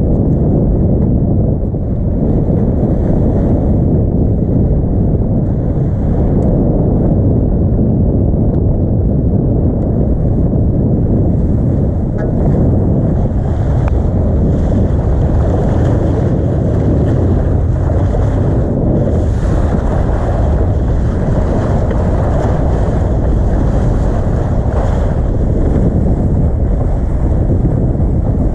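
Wind buffeting the microphone over the steady rush of sea water along the hull of a Volvo 65 racing yacht under way, growing hissier about halfway through.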